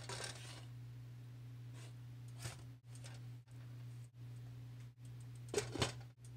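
Quiet handling of a nonstick frying pan over a steady low hum: a few soft clicks and clatters as muffins are moved, the loudest about five and a half seconds in as the glass lid is set on the pan.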